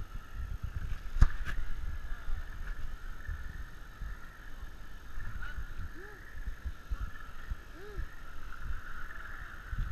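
Low bumping rumble and scattered knocks from a camera jostled on a walking elephant's metal riding seat, with one sharp knock about a second in. Under it runs a steady high insect drone.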